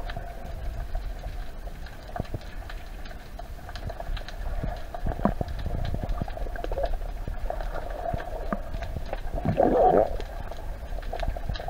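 Underwater noise through a camera housing: a steady low rumble and hum, with scattered sharp clicks and a louder swell about ten seconds in.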